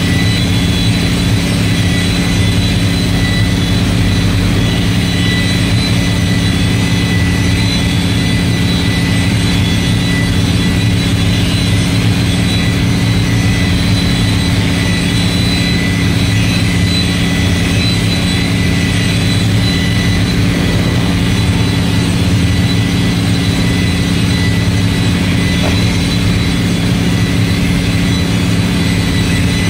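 Handheld electric car polisher running steadily while buffing paint: a steady high motor whine over a low hum.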